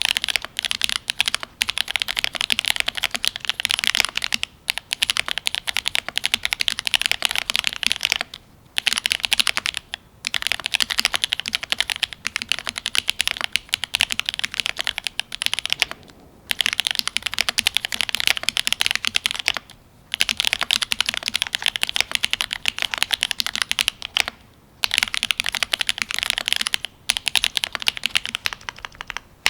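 Cyberboard R3 mechanical keyboard with lubed Gateron Ink Black linear switches, an aluminium plate and GMK keycaps, typed on fast in long runs of keystrokes with brief pauses every few seconds.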